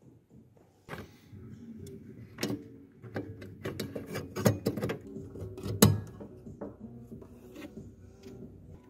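Small plastic clicks and knocks from hands working an H7 halogen bulb and its connector into a headlight housing as the bulb is pressed into place, with a few louder knocks around the middle.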